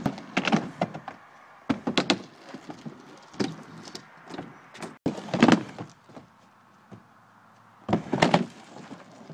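Stunt scooter knocking and clattering on concrete: about five short clusters of sharp knocks, the deck and wheels slapping down and rattling.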